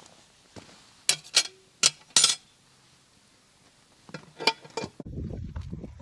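A handful of sharp clinks of camp cookware or utensils being handled, four in quick succession then one more a couple of seconds later. About five seconds in, the sound cuts abruptly to a steady low rumbling noise.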